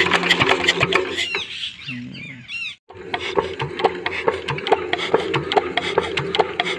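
Small diesel water-pump engine being cranked over while air is bled from its loosened injector fuel line: a steady drone with rapid, regular clicks. A few high chirps sound near the middle, and there is a brief dropout a little before halfway.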